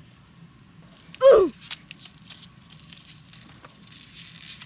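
A short, loud cry that drops steeply in pitch about a second in, then a hissy crinkling and tearing of the masking and Scotch tape wrapped around the shift knob near the end.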